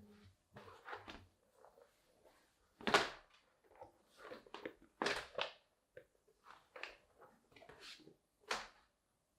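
Packaging being handled and opened: an irregular run of short rustles, scrapes and knocks, the loudest about three seconds in, then more around five seconds and near the end.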